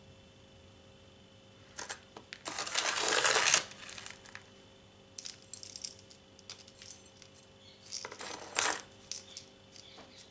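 Loose pumice-mix potting granules clinking and rattling in a pot in two gritty bursts. The louder burst comes about two and a half seconds in and lasts about a second; a shorter one comes near eight seconds. Scattered small clicks fall between them.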